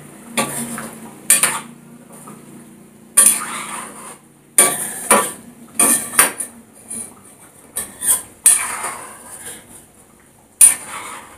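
Steel spoon knocking and scraping against a cooking pan as boiled eggs are added to curry gravy and stirred in: a dozen or so irregular clinks and scrapes, the sharpest near the end.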